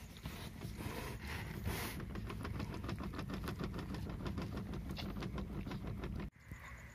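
Newborn puppies suckling at their mother: a rapid run of small clicks and smacks over a steady low rumble, cutting off abruptly about six seconds in.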